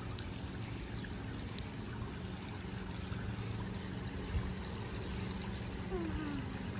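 Water from a garden hose spraying out of an inflatable pool's sprinkler spout and falling into the pool water: a steady splashing trickle.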